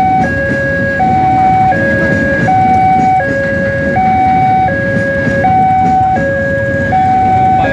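Level crossing warning alarm sounding a two-tone electronic signal, high and low notes alternating about every three-quarters of a second, warning that a train is crossing. Under it the steady rumble of a red-and-white commuter electric train passing over the crossing.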